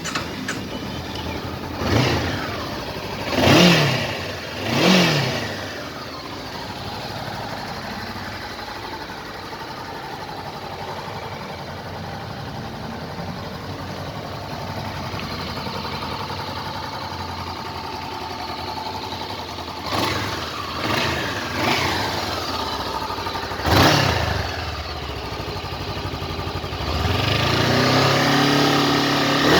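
Honda CBR500R parallel-twin engine idling and blipped up several times in quick, sharp revs that fall straight back to idle. Near the end the throttle is held open for a longer rev of a couple of seconds.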